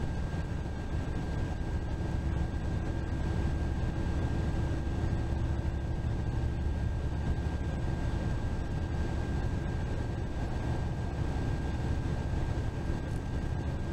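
Steady low rumble of a bus cruising on the interstate, heard from inside: engine and road noise with no break or change, and a faint steady high tone over it.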